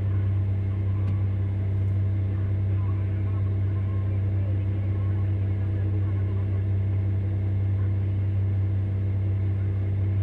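Komatsu HD785-7 haul truck's V12 diesel engine idling steadily, heard from inside the cab as an even low drone.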